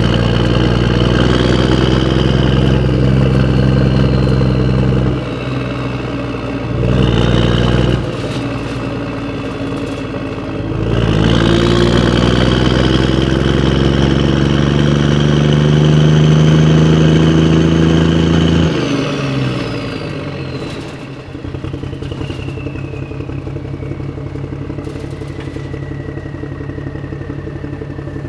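Motor vehicle engine running: it revs up briefly, then climbs slowly in pitch with a rising whine as it pulls away. It cuts back sharply to a quieter, even ticking run while the whine falls away.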